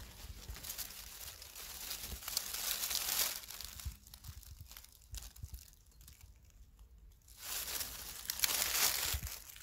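Dry fallen leaves rustling and crinkling as a hand pushes through the leaf litter, in two louder spells with a quieter stretch in the middle.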